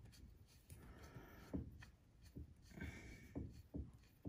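Faint scraping and a few light knocks as a crankshaft timing pin tool is screwed hand-tight into the engine block until it seats.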